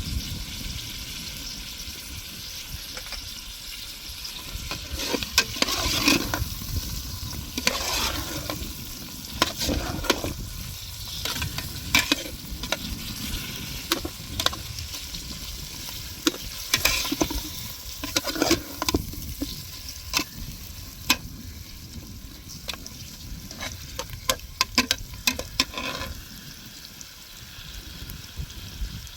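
Food frying and sizzling in a pan while it is stirred, with a utensil repeatedly scraping and knocking against the pan.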